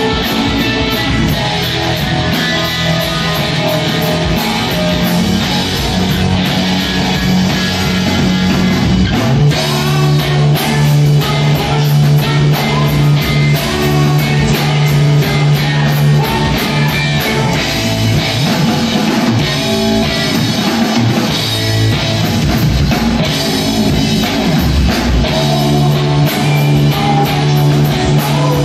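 Live rock band playing an instrumental passage on two electric guitars and a drum kit, loud and full, with a low held guitar note that steps down in pitch about ten seconds in.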